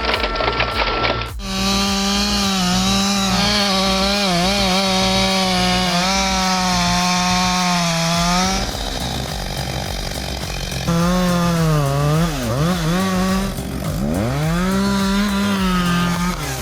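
Two-stroke chainsaw running at high revs, its pitch wavering and sagging as it works, then recovering. The engine note drops away for about two seconds, then comes back with a couple of sharp drops and re-revs.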